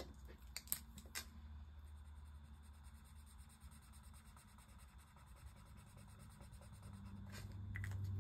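Felt-tip marker scratching faintly on a card as a box is coloured in. A few light clicks come in the first second and again near the end.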